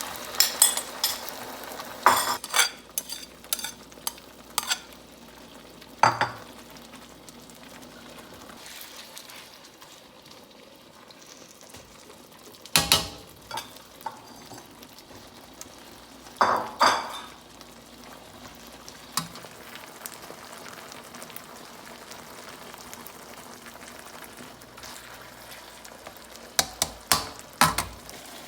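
Chicken and leek sizzling in a pan over turned-down heat, with sharp clinks and scrapes of a utensil every few seconds.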